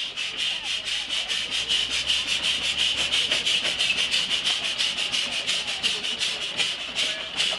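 Burrell single-crank-compound traction engine passing close, its steam exhaust giving a quick, even rhythm of hissing chuffs, about six a second.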